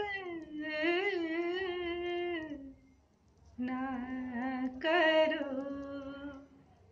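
A woman singing unaccompanied, drawing out long vowels with a wavering pitch, pausing briefly about three seconds in and then singing two more phrases that die away near the end.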